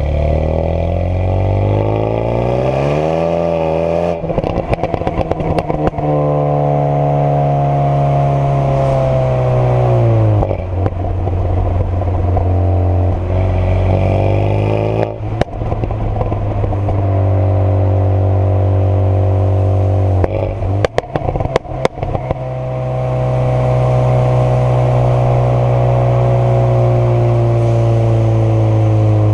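Renault Sport Megane 225 Trophy's turbocharged four-cylinder engine and straight-through exhaust, with the catalytic converter and middle silencer removed. The engine revs up and down with several steady stretches, and clusters of exhaust pops and crackles come a few seconds in, around the middle and about two-thirds through.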